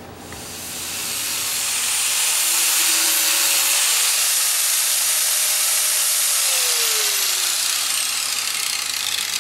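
Power grinder grinding steel off one end of a lawn mower blade, a steady hiss that builds up about half a second in and holds. More metal is being taken off the heavier end to balance the blade.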